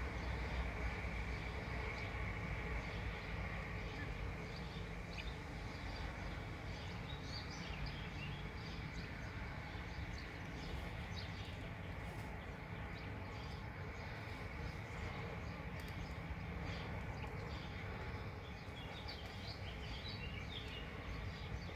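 Steady outdoor background noise with a low rumble, with short, faint high chirps of small birds scattered through the second half.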